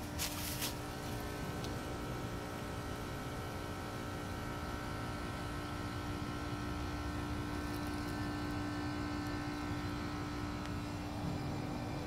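Trane XB13 central air conditioner condensing unit running steadily: the fan and compressor hum with a constant low tone and a fainter higher whine, which drops away near the end.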